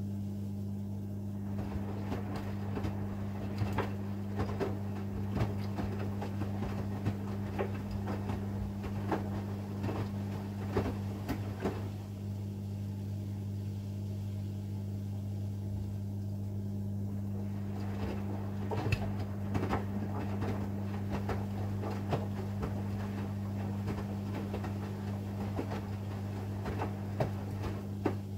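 AEG 8000 Series Lavamat front-loading washing machine in its wash phase: the drum tumbles for about ten seconds with the laundry swishing and knocking, stops for a few seconds, then tumbles again, over a steady low hum.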